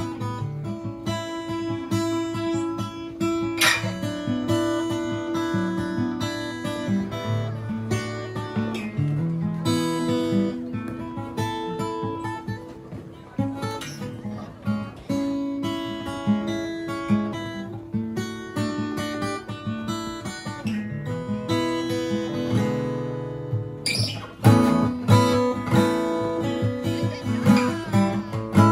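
Background music carried by acoustic guitar, plucked and strummed. It drops briefly near the end, then comes back in louder.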